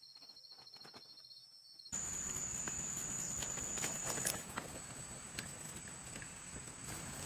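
Forest insects trilling, faint and pulsing at first; about two seconds in it cuts to louder outdoor ambience, a steady high insect drone over a broad hiss with scattered clicks and rustles.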